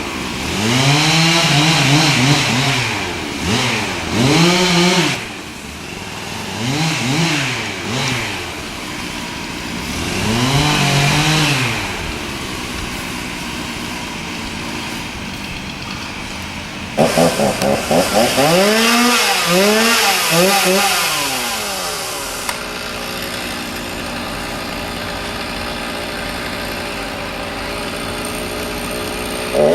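Two-stroke chainsaw revved again and again, its pitch rising and falling with each blip of the throttle. It drops back to a steady idle between the bursts of revs.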